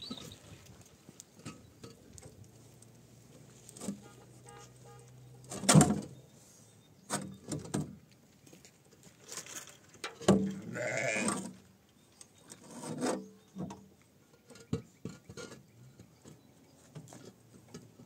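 A sheep or goat bleating once, a wavering call about ten seconds in. Scattered knocks and clatter surround it, the loudest a sharp knock about six seconds in.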